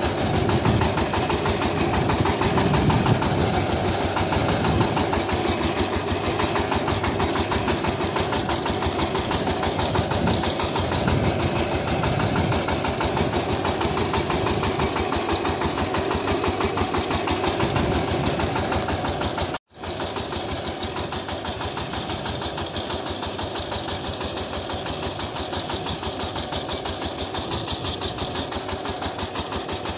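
VST Shakti 130 DI power tiller's single-cylinder diesel engine running steadily with a rapid, even beat as it pulls a cultivator through crop rows. The sound cuts out for an instant about two-thirds through, then carries on slightly quieter.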